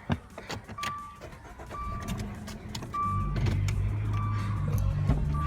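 Car's warning chime beeping about once a second, with a few clicks. About three seconds in, the engine starts and settles into a steady idle under the beeps.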